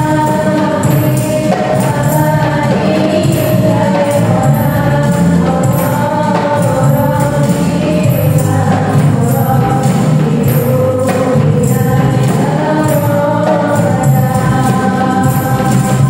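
Qasidah music: voices singing a sholawat, an Islamic devotional song, over a steady beat of jingling hand percussion.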